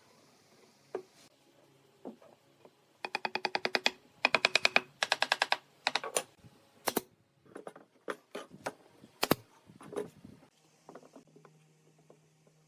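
Quick runs of sharp tapping, about ten taps a second, in three bursts a few seconds in, followed by scattered single knocks and clicks.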